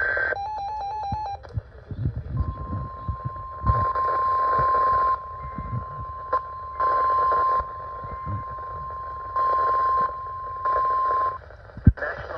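NOAA Weather Radio's 1050 Hz warning alarm tone: one steady high tone held for about nine seconds, broken into by four loud bursts of hiss. A short stepped electronic beeping comes just before it.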